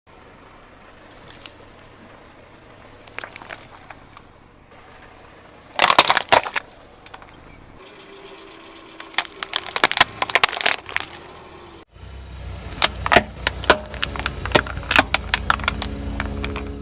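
Hard objects cracking and crunching as a car tyre rolls over and crushes them, in rapid clusters of sharp snaps. From about twelve seconds in, a low car engine rumble runs under further crunching.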